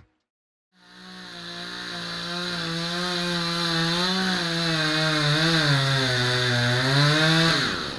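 Two-stroke chainsaw cutting into a tree under load, its engine pitch wavering as the chain bites and getting louder. Near the end the pitch drops sharply as the throttle is let off.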